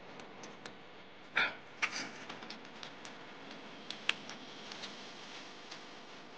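Eating sounds at a table: scattered small mouth clicks while momos are chewed, and light knocks of plates and glasses. There is a short, louder rustling noise about one and a half seconds in, and a sharper click about four seconds in.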